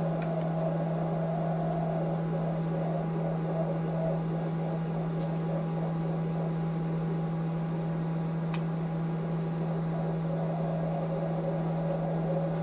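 Steady hum with an even hiss of room noise, unchanging throughout, with a few faint light clicks.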